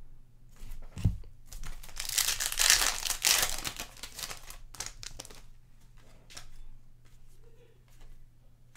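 Trading-card pack wrapper being torn open and crinkled, loudest from about two to three and a half seconds in, after a light thump about a second in. Softer rustling and clicks of cards being handled follow.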